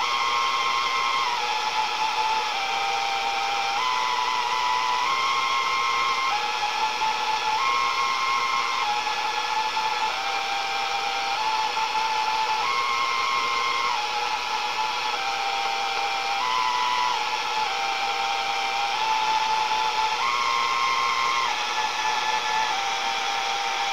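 A radio receiver playing steady static hiss with a tone that hops between a few pitches every second or so, in a slow repeating pattern. The owner takes it for sounds picked up from the galaxy.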